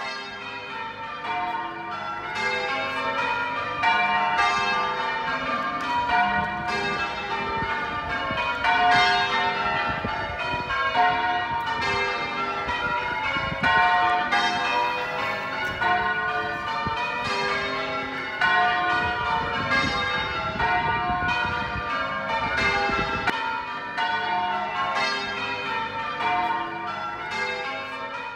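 Church bells ringing, many overlapping strikes in a steady stream, growing louder over the first few seconds.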